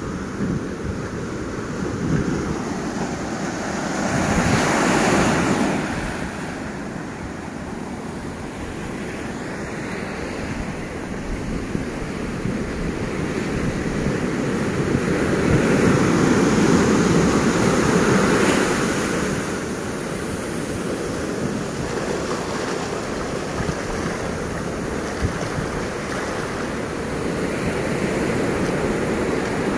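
Ocean surf breaking over rocks and washing up the sand in a steady wash. It swells loudest about four to six seconds in, and again from about fifteen to nineteen seconds.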